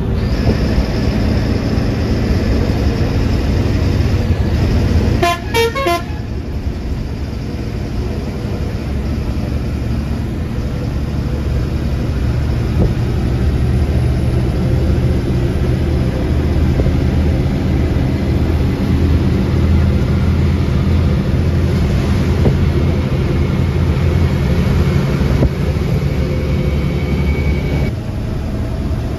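Bharat Benz sleeper coach running at speed, its engine and road rumble heard from inside the cabin. About five seconds in, a horn sounds as a rapid string of short beeps lasting under a second.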